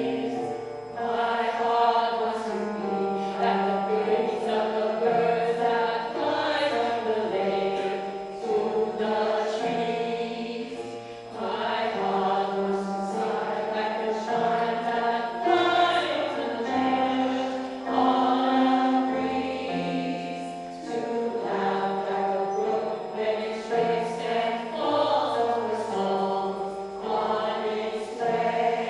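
Choral music: a choir singing a melody in several voices, with the notes changing about every second.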